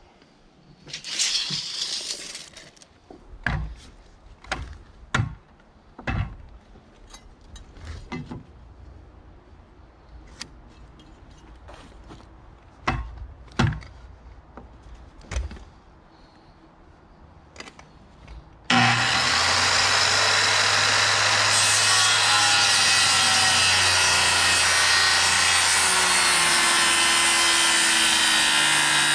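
Corded handheld circular saw starting abruptly about two-thirds of the way through and running steadily, cutting into a thick beam of freshly sawn green lumber. Before it, scattered knocks and taps.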